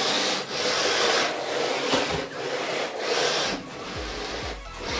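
Electric 1:10 RC drift car driven on a wooden floor: its motor whirring and its tyres sliding and scrubbing across the boards in repeated bursts of throttle, about one a second, with short let-offs between them.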